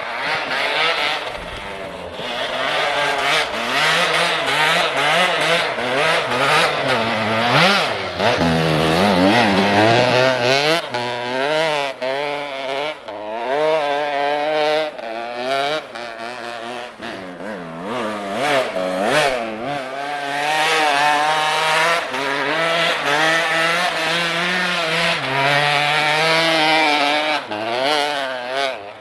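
Enduro dirt bike engine running and being revved over and over, its pitch rising and falling without a break.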